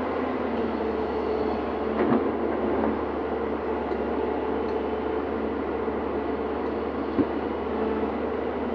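Excavator running steadily under work, with two short knocks, about two seconds in and near the end.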